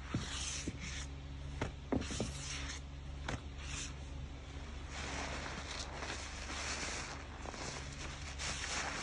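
Thick soap suds crackling and squelching as a sponge and a cup are worked through the foam, the fizzing hiss getting denser about halfway through. A few sharp clicks come in the first few seconds, over a steady low hum.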